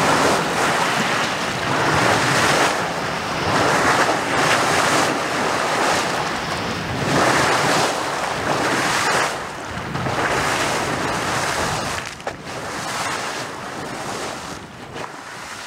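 Water surging and splashing, swelling and easing every second or two, with wind buffeting the microphone. It fades out gradually in the last few seconds.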